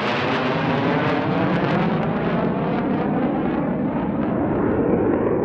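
Panavia Tornado's twin RB199 turbofan jet engines, a loud steady jet noise whose hiss slowly dulls as the high end fades, as a jet does when it moves away, with a wavering, phasing quality.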